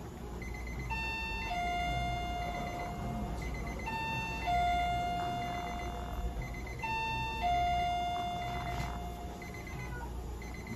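Electronic alarm tones from equipment: a short high beep repeating about every two-thirds of a second, and a two-note signal, a short higher note dropping to a longer lower one, that sounds three times about three seconds apart.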